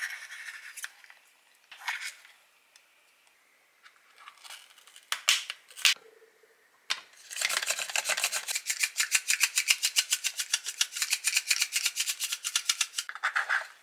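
Peeled garlic cloves sliced on a small handheld mandoline slicer: a fast, even run of rasping strokes, about six or seven a second, starting about halfway through and stopping just before the end. Before it, a few light clicks and knocks of small plastic food containers being handled.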